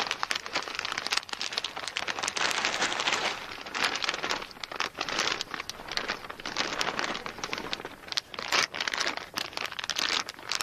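A polythene bag crinkling as it is gathered and tied shut around a leafy eucalyptus branch, sealing the lower end of a transpiration bag. The crinkling comes in spells of handling with short pauses between them.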